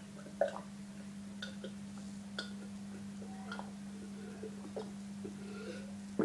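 A person gulping down a glass of water: faint, irregular swallowing clicks over a steady low hum.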